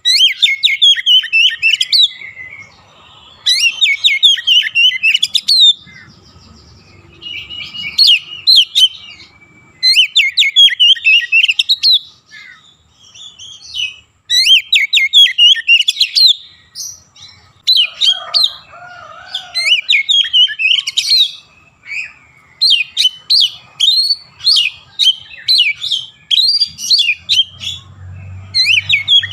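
Oriental magpie-robin singing loudly in repeated short bursts of rapid, high notes with brief pauses between phrases. A lower warbling call comes in about two-thirds of the way through.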